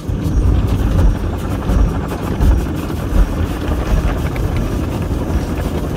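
Car wash water jets spraying the car, heard from inside the cabin as a loud, dense rush with low drumming on the body and glass. It comes on abruptly and stays on.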